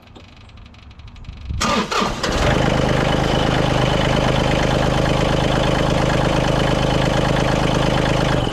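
John Deere 3038E compact tractor's three-cylinder diesel engine cranking on its newly installed battery, catching within about a second and running steadily, then shut off near the end. It starts readily: the new battery and connections are good.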